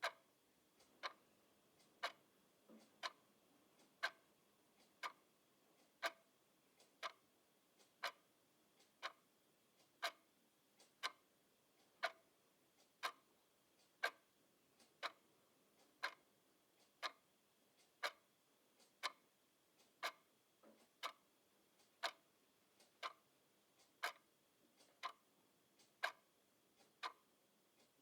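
Clock ticking steadily, one tick a second, the ticks alternating slightly louder and softer in a tick-tock.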